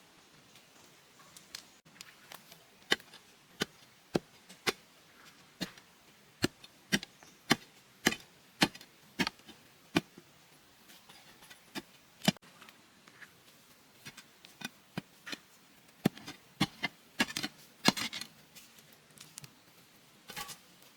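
Irregular series of sharp chopping strikes on bamboo, a blade cutting into the wood about one or two times a second, with a quicker flurry of blows near the end.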